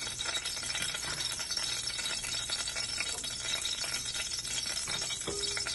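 Ghee and oil heating in an aluminium pressure cooker, sizzling with a steady fine crackle of quick ticks.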